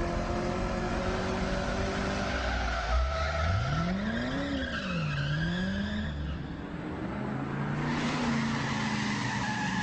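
Ford Mustang's engine running as the car drives, revving up and falling back about four seconds in, then pulling steadily again.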